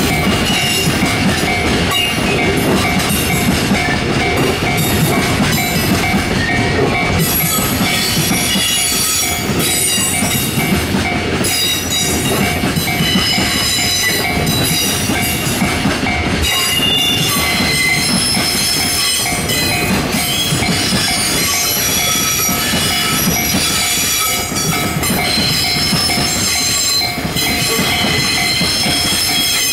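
A long freight train's container flatcars rolling steadily past, their wheels clattering on the rails. High-pitched wheel squeal comes and goes from about seven seconds in.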